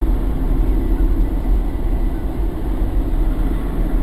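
Steady low rumble of a car driving along a highway, engine and tyre noise heard from inside the cabin. It begins abruptly.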